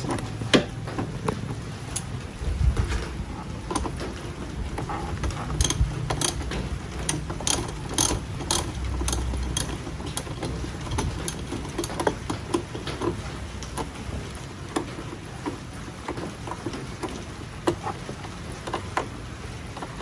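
Socket ratchet wrench clicking in short runs, with metal taps and light knocks from tools and parts being refitted around the car battery. The sharpest run of clicks comes about six to eight seconds in.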